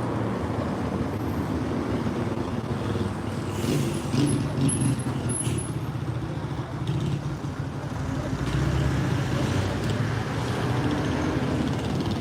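Motor traffic: the steady low rumble of vehicle engines running, with a brief high squeal about four to five seconds in.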